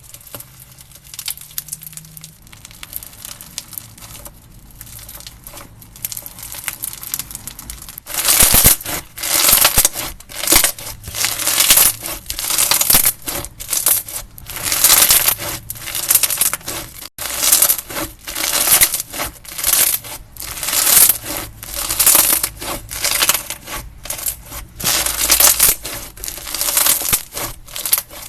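Slime being squeezed and pressed by hand. It is soft and quiet with faint small clicks at first. About eight seconds in it turns to loud crunchy crackling that repeats roughly once a second.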